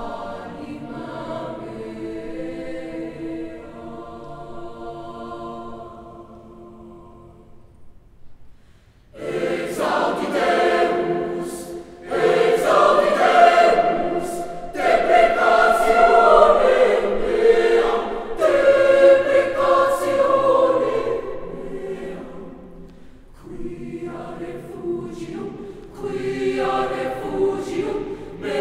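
Mixed high-school choir singing. Soft held chords fade away, and after a short pause about eight seconds in the full choir comes in loudly and sings strongly for a long stretch, then goes on more softly near the end.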